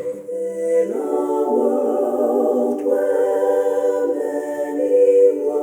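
All-female a cappella vocal ensemble singing held chords, with more voices filling out the harmony about a second in.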